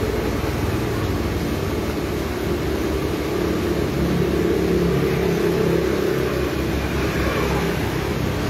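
Street traffic: a motor vehicle's engine running steadily with road noise, swelling a little in the middle.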